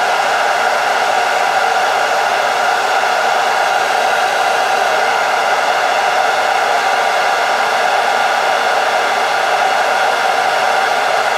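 Hot-air blower running steadily, a constant rushing blow with a faint steady hum, shrinking heatshrink tubing over cable sleeving.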